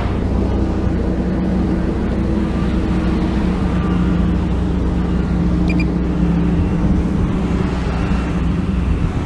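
Heavy diesel engine of earthmoving machinery running steadily under load, a deep rumble with a steady engine hum.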